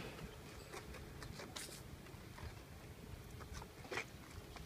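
Faint clicks and knocks of a folding electric bike-scooter's frame being handled as it is lifted out and set upright, with one sharper click about four seconds in.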